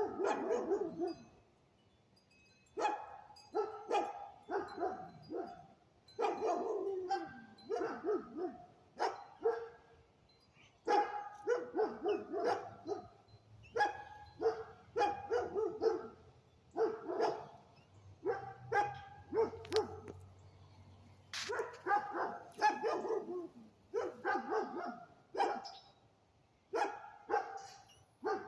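A dog barking in short runs of several barks, again and again with brief pauses between runs.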